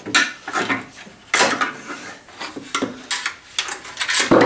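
A screwdriver and a hard plastic boombox speaker housing knocking and clattering as the speaker is worked loose: an irregular string of sharp clicks and knocks.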